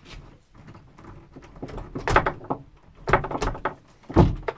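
Metal clinks, knocks and rattles as a cut-off dinner-fork handle is pushed through the prongs of a bent fork wedged in a door's latch, knocking against the door. The knocks come irregularly, loudest about two seconds in, around three seconds in and near the end.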